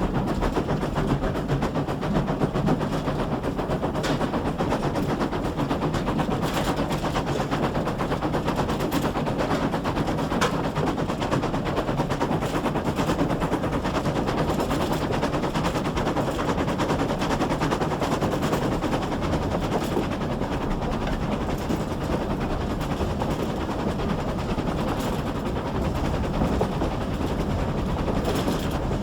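GWR 6400-class pannier tank steam locomotive no. 6412 working along the line, a fast, steady run of exhaust beats and running clatter heard from on board the train, with a few sharper clicks here and there.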